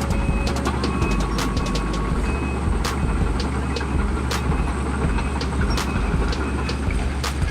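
Link-Belt 210 excavator's diesel engine running steadily under load, with frequent sharp metal clanks and clinks from scrap metal being handled. A brief high whine rises in about a second in.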